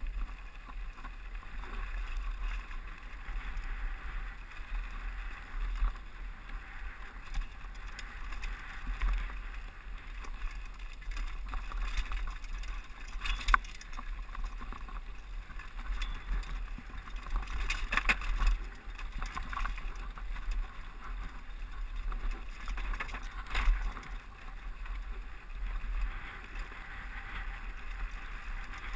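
Downhill mountain bike rolling fast over a rocky dirt trail: a steady rumble of wind and tyre noise with the bike rattling, and sharp knocks from hitting rocks, loudest about halfway through and twice more later.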